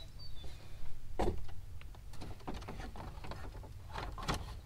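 Plastic dash trim panel knocking and clicking against the dash as it is pushed and wiggled to line up its clips, with a few separate knocks.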